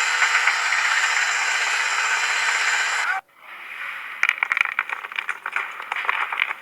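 Machine noise: a steady, loud hiss that cuts off suddenly about three seconds in, followed by irregular rattling and scraping clicks.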